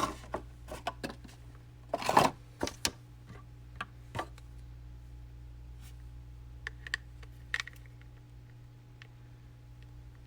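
Handling noise from unboxing camera parts and packaging: scattered small clicks and taps, with a brief louder scrape or rustle about two seconds in, then only a few sparse clicks over a low steady hum.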